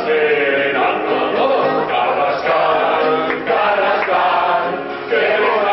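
Live song: male voices singing with an acoustic guitar.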